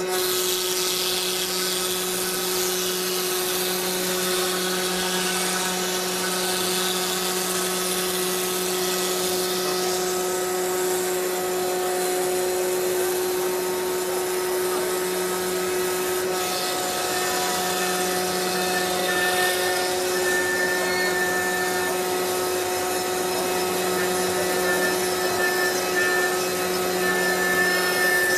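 CNC router spindle running at speed while milling, a steady machine whine with hiss over it. In the second half a higher tone comes and goes.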